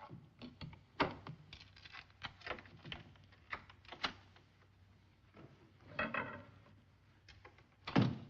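A long series of irregular clicks, clacks and rattles of many door locks, bolts and latches being undone one after another, with a louder rattle about six seconds in and a heavier knock near the end.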